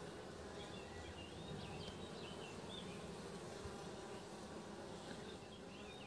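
A colony of honeybees humming steadily at the hive entrance as workers fly in and out, with faint high chirps behind.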